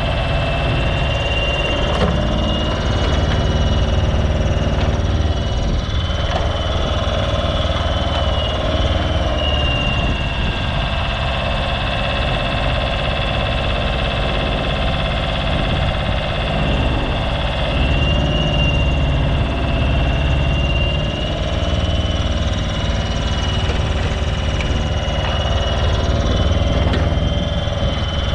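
Smalley mini digger running as it digs: a steady engine note underneath, with a high hydraulic whine that rises and dips in pitch as the boom and bucket work under load.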